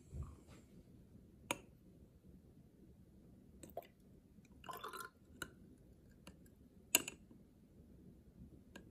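Water poured from one glass graduated cylinder into a 10 mL glass graduated cylinder: faint scattered clicks of glass touching glass, and a brief trickle of water about five seconds in.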